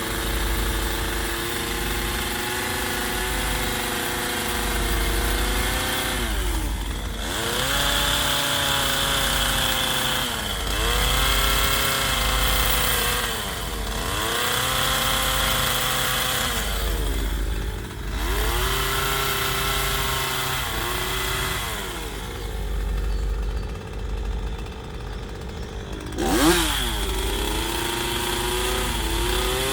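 Chainsaw carving into a wood log, its engine revving up and dropping back again and again as the throttle is worked between cuts. Near the end it falls to a lower, quieter speed for a few seconds, then revs up sharply again.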